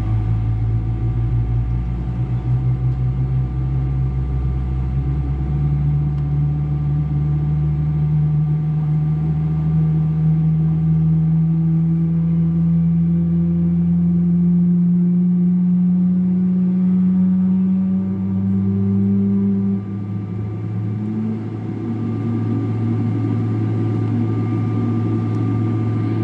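Boeing 777-300 jet engine spooling up during start, heard inside the cabin: a low whine rises slowly in pitch over a deep hum, then falls away sharply about 20 seconds in.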